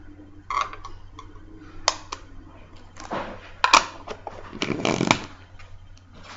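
Clear plastic coin capsule holding a heavy one-kilo silver coin being turned and handled: short scraping rubs of hands on the plastic with a few sharp clicks, the loudest near the middle.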